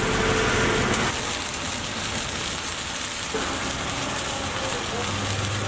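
Hot oil sizzling steadily in a wok around frying dried red chillies and green chillies.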